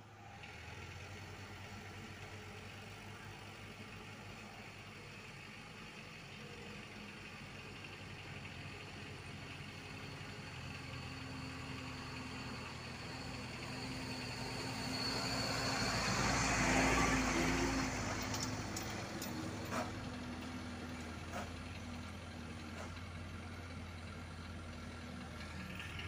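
Isuzu Elf light dump truck's diesel engine running steadily as the truck drives slowly up and passes close by, growing louder to a peak about two-thirds of the way through and then easing off, with a few sharp clicks after the peak.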